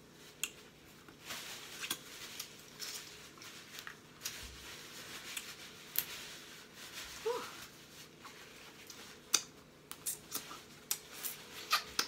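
Blue crab shells being cracked and picked apart by hand, close to the microphone: an irregular run of sharp cracks and clicks with short softer rustling between them.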